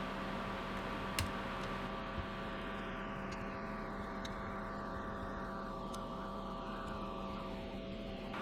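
Steady hum and hiss, with a few small sharp clicks about one and two seconds in. The higher hiss gradually dies away toward the end.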